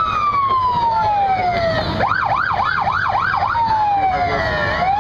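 Fire department vehicle's electronic siren: a slow falling wail, then about a second and a half of fast yelp with about five quick up-and-down sweeps, then falling again and starting to rise near the end.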